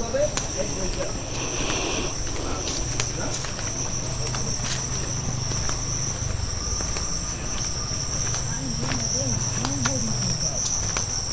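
Steady high-pitched insect chorus droning without a break, over a low rumble of wind or handling noise.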